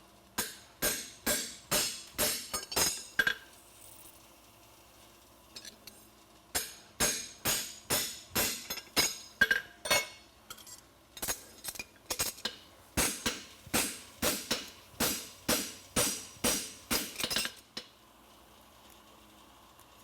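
Farrier's hammer striking a steel horseshoe on an anvil in three runs of blows, about two to three strikes a second, with short pauses between runs.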